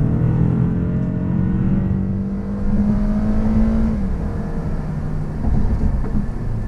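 2019 Toyota Camry XSE's 2.5-litre four-cylinder engine at full throttle in a 0–60 mph run. The engine note climbs steadily, then drops about four seconds in as the automatic transmission upshifts, leaving engine and road noise.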